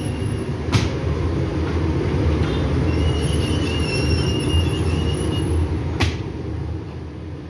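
Bakery production-line machinery running steadily, the dough-sheeting conveyor and revolving bread oven, with a low rumble and a faint high whine. Two sharp clacks come through, one about a second in and one near the end, and the sound fades out at the very end.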